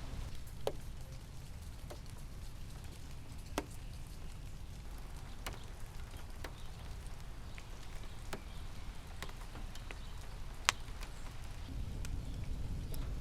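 Raindrops falling and dripping: scattered sharp taps on a surface at irregular intervals, one louder drop late on, over a steady low rumble.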